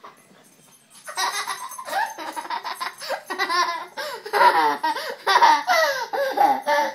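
Young child laughing in repeated high-pitched bursts, starting about a second in, while a Boston Terrier licks his face.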